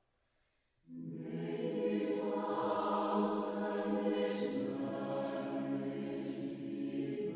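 Mixed-voice chamber choir singing a cappella, entering together about a second in on sustained chords. Sung 's' consonants hiss briefly a few times.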